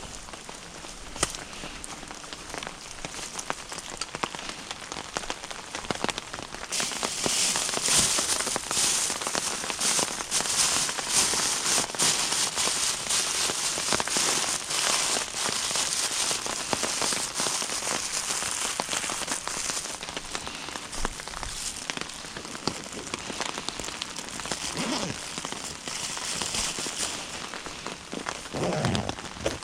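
Wood and charcoal fire burning in a small cooking stove, crackling with many quick pops over a steady hiss. The hiss swells about seven seconds in and eases again after about twenty seconds.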